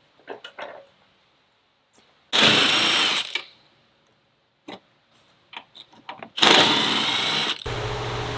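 A power tool driving off the 13mm muffler nuts in two whirring bursts of about a second each, with light metallic clicks of tool and nuts between them. A steady hum starts near the end.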